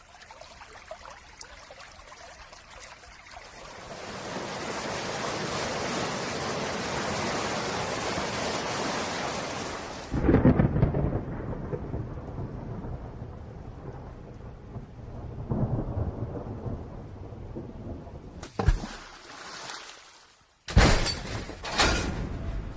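Rain sound effect: a steady hiss that swells after a few seconds, then a thunderclap about ten seconds in, followed by rolling rumble that fades. Near the end a few sharp loud cracks come in.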